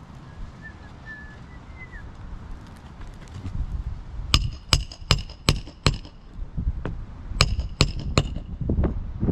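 Hammer driving roofing nails into asphalt shingles: a run of five quick, ringing strikes about halfway through, then three more near the end.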